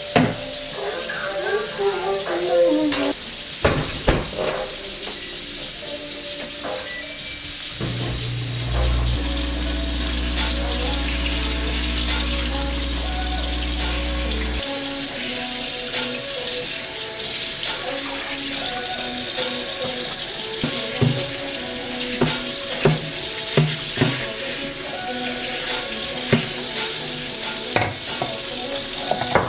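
Kitchen tap running steadily into a stainless-steel sink as dishes and a wooden cutting board are rinsed under it, with short knocks and clinks of the dishes, most of them in the latter half.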